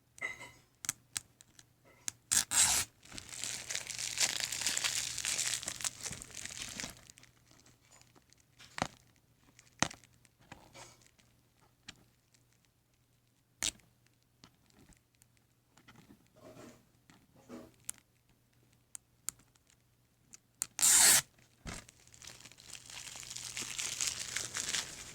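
A sticker and plastic wrapping being torn and peeled off a DVD case, crinkling, in two long bursts: one a few seconds in and another in the last few seconds. Sharp clicks and ticks from the plastic case come between them, the loudest just before the second burst.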